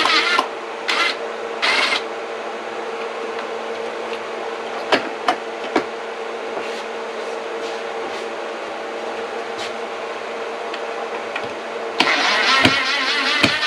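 A power tool trimming back wooden boards: a steady running hum, cutting hard at the start, in two short bursts within the first two seconds, and again from about twelve seconds in, with a few sharp clicks around five seconds in.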